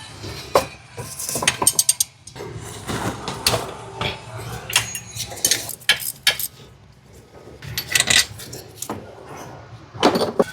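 Hand tools clinking and clicking on metal in irregular sharp knocks, with a quick run of clicks about a second and a half in, while bell housing bolts are worked loose on a Subaru engine.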